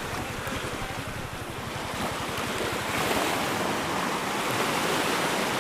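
Sea waves washing on the shore, with wind buffeting the microphone; the surf swells a little louder about halfway through.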